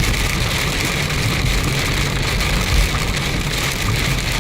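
Heavy rain hitting a moving car, heard from inside the cabin: a steady hiss of rain and wet tyres over a low road rumble.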